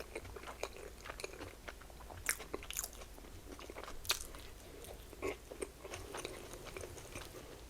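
A person chewing and smacking on a mouthful of slider burger, close to the microphone, with irregular soft wet clicks and a few louder smacks.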